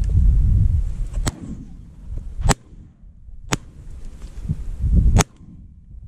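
Shotgun shots: two loud reports about two and a half and five seconds in, with two fainter sharp cracks, one before and one between them. Wind buffets the microphone.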